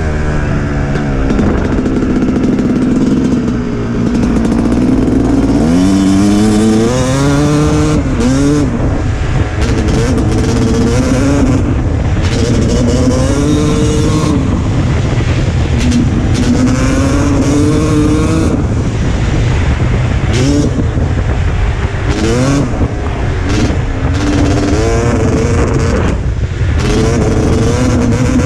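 Dirt bike engine at speed, revving up through the gears over and over, its pitch climbing and then dropping back at each shift, with wind rushing over the helmet-camera microphone.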